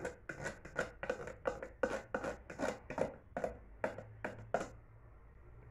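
A quick run of light, sharp clicks, about four a second, made by hand at a kitchen mixing bowl; they stop a little before five seconds in.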